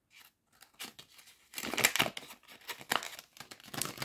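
Crinkling and rustling of a thin printed wrapper being squeezed and shaken by hand, in irregular bursts that start after about a second and a half, as a small item stuck inside is worked out.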